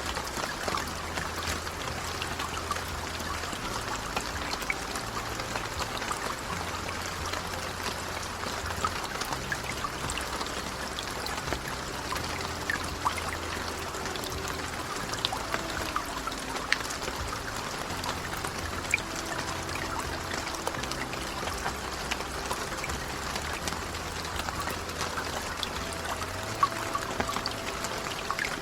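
Steady rain falling, an even wash of water noise with scattered sharp clicks of single drops landing, and some running or trickling water.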